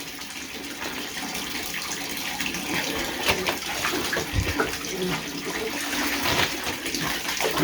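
Water running and splashing in a bathtub as puppies play in it: a steady rush of water with scattered splashes and knocks.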